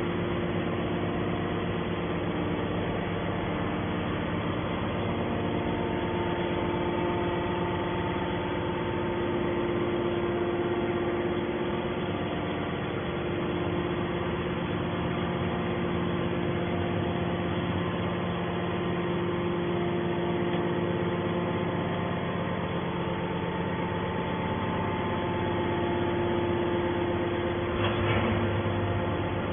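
Scrap metal baler running: a steady machine hum with several held tones, and a brief knock near the end.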